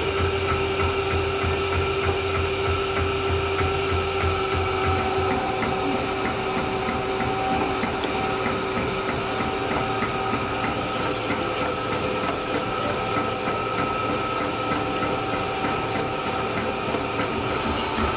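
Metal lathe running steadily with a steady hum and a faint regular ticking.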